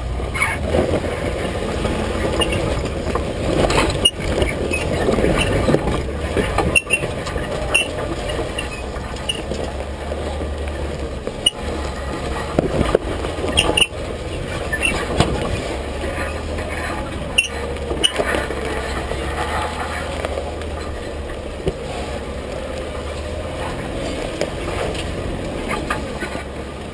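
2008 Jeep Wrangler Unlimited (JK) crawling slowly over a rocky dirt trail, heard from low on its side: the steady low drone of its 3.8-litre V6 under many scattered sharp clicks and knocks from the tyres crunching over stones and the undercarriage rattling.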